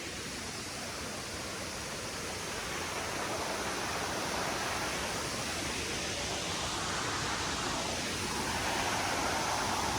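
Steady rushing noise of a tall waterfall with a drop of about 75 m, heard from above. It grows a little louder a few seconds in.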